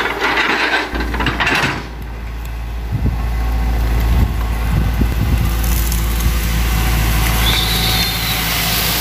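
Hitachi hydraulic excavator's diesel engine running under load as it uproots and shoves over an oil palm. There is a burst of crackling in the first two seconds, then scattered snaps and knocks of roots and fronds giving way.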